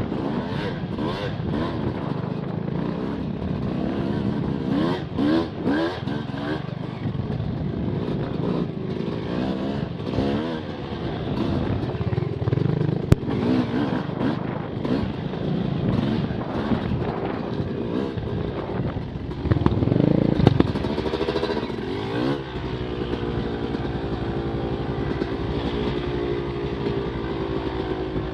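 Off-road motorcycle engines revving up and down over rough trail, with clatter from the bikes. A sharp knock comes about 13 seconds in, and near the end the engine settles to a steady note.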